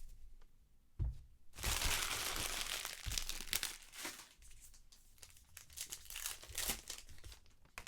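Wrapper of a Topps Heritage baseball card pack being torn open and crinkled. There is a knock about a second in, then a long rip, then scattered crinkling and handling clicks.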